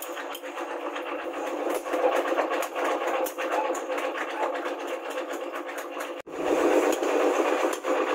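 Rapid, repeated hammer blows on a hot punch, driving a hole through red-hot steel rebar on an anvil: a fast, irregular metallic clatter. The sound drops out abruptly about six seconds in, then comes back louder.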